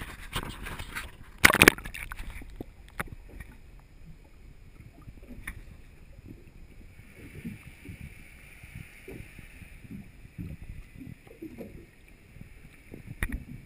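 Lake water splashing and sloshing over a camera at the surface, with a loud splash about a second and a half in. Then the muffled, knocking sound of the camera underwater, with a steady faint hiss from about seven seconds in and a sharp knock near the end.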